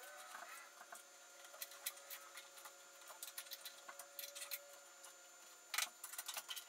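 Faint scattered clicks and taps of parallel bar clamps being handled and adjusted against plywood panels, with a small cluster of sharper clicks near the end.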